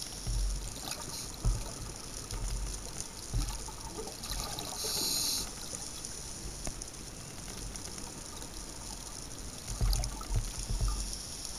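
Underwater sound picked up through a camera housing: a steady faint hiss with low bumps and small clicks, and a dense gush of scuba regulator exhaust bubbles about five seconds in.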